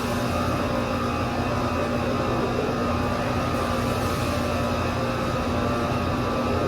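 Steady drone of running machinery, a constant motor hum with a fixed tone, unchanging throughout.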